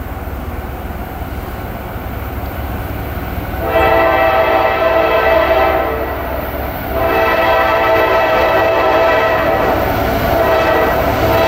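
Diesel locomotive air horn sounding as the train approaches a grade crossing: one long blast starting about four seconds in, then a second long blast from about seven seconds on, over a low rumble.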